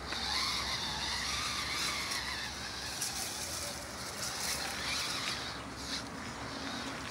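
Electric RC rock crawler with two small 380-size 40-turn brushed motors, one on each axle, whining as it climbs over dirt and rocks. The pitch rises and falls with the throttle.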